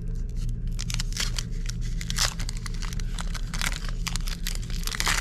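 Foil Pokémon booster pack crinkling and tearing as it is ripped open by hand, in a run of irregular crackles, over a steady low hum.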